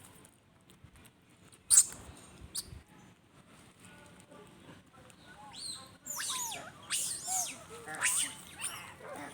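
A sharp knock about two seconds in. From about six seconds on, monkeys calling in a run of high squeals that rise and fall in pitch.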